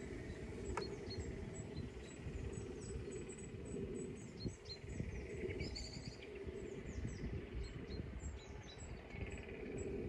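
Outdoor countryside ambience: wind rumbling and buffeting the microphone, with small birds chirping and singing throughout, busiest around the middle.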